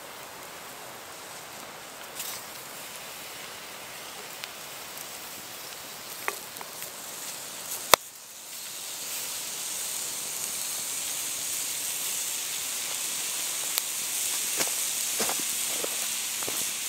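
Mushrooms and an onion slice sizzling on a hot salt block over a campfire, with a few small ticks. A single sharp click comes about halfway through, after which the sizzle is louder and brighter.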